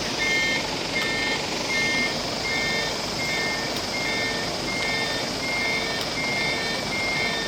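A heavy vehicle's electronic warning alarm beeping steadily in an alternating two-tone pattern, a few beeps a second, over the continuous noise of running machinery. It sounds as the load-out begins the jack-up.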